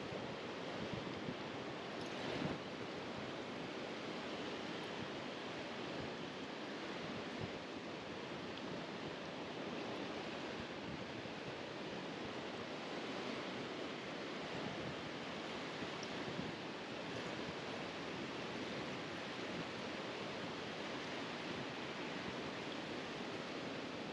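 Steady wash of North Sea surf breaking on a beach at night, an even rushing noise with no distinct strokes.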